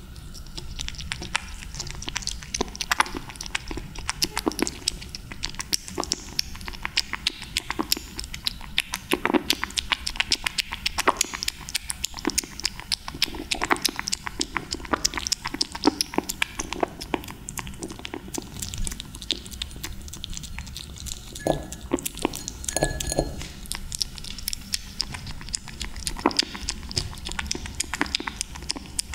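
A young kitten eating raw tuna from a shallow glass dish, close up: a continuous run of quick wet licking and chewing clicks and smacks, many each second.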